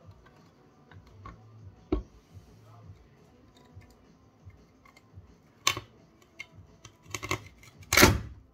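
A thin 0.8 mm abrasive cut-off wheel on a switched-off angle grinder, pressed and flexed against a tabletop. Scattered clicks and knocks, then louder scraping bursts, the loudest about eight seconds in.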